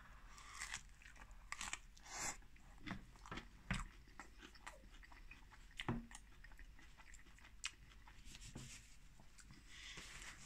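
A man biting into and chewing a mouthful of loaded pizza with a crusty base: irregular soft crunches and wet mouth clicks, spread out over the whole stretch.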